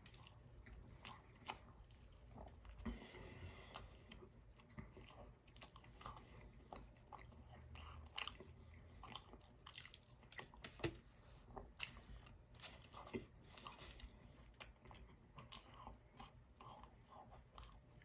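Faint close-up chewing and biting of a soft biscuit-wrapped sausage, egg and cheese breakfast roll-up, with many small mouth clicks scattered throughout.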